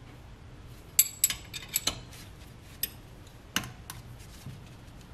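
Metal wrench clinking on a brake line fitting as the nut is tightened into the master cylinder: irregular sharp metallic clicks and clinks, about eight of them, bunched in the first half with a louder one past the middle.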